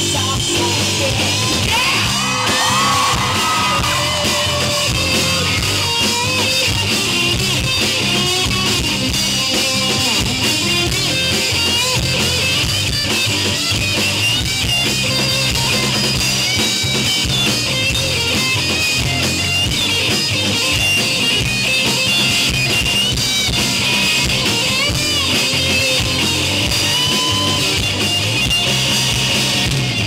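Rock band playing live and loud: electric guitars over bass and drum kit, with no break.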